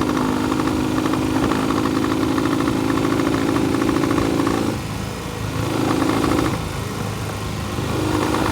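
Classic twin-cylinder motorcycle engine running, its note dropping away about five seconds in, picking up briefly, dropping again and picking up near the end. It runs unevenly because the left cylinder keeps cutting out, leaving it firing on one cylinder.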